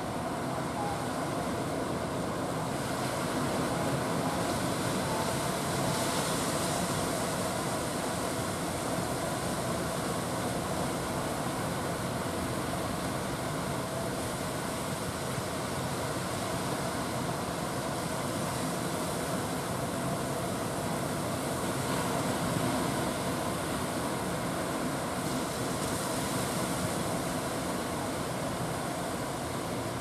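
Big ocean waves breaking and surf rushing, a steady wash of noise that swells a little a couple of times.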